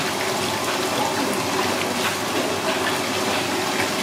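Tap water pouring steadily into an aluminium basin of water, splashing as large trumpet conch shells are rinsed in it.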